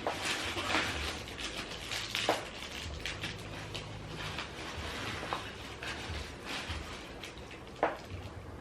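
Plastic ring-light parts being handled and fitted: continuous rustling with small ticks and two sharper plastic clicks, one about two seconds in and one near the end.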